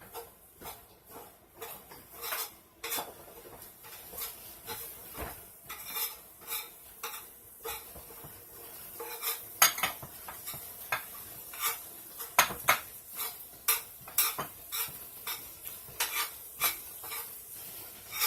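Utensil clinking and scraping in a frying pan over a steady sizzle as ground sausage fries, with many sharp knocks throughout.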